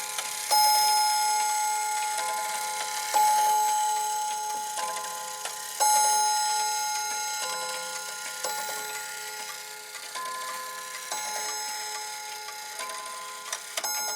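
Soviet Yantar mechanical wall clock striking: a series of ringing gong strokes at two or three different pitches, each left to ring out. The three loudest strokes come in the first six seconds, about two and a half seconds apart, with softer strokes between and after. The clock has just been overhauled and is being test-run.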